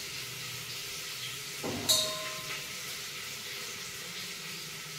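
A steel pot clinks once, sharply and with a short ring, about two seconds in, while potatoes are being cut in half with a knife over it. A faint steady hiss runs underneath.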